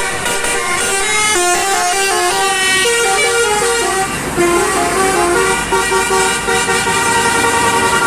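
Basuri multi-tone musical air horn on a bus playing a melody, stepping from note to note several times a second.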